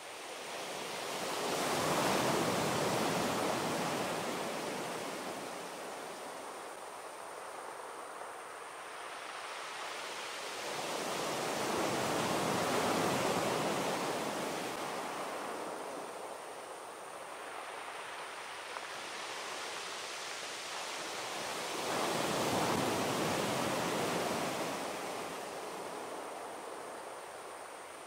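Sea waves breaking and washing up on a beach: three waves about ten seconds apart, each a rushing swell that rises and then fades away.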